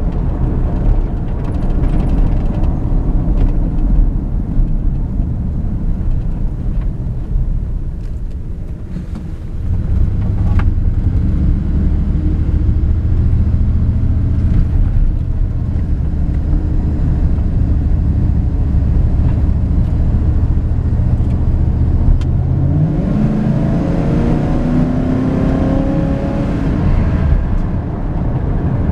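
1994 Dodge Ram 1500 pickup's engine and road noise heard inside the cab. A steady rumble while driving gives way, about a third of the way in, to a steady low engine hum at slow speed. Near the end the engine note rises as the truck accelerates, then settles back into road rumble.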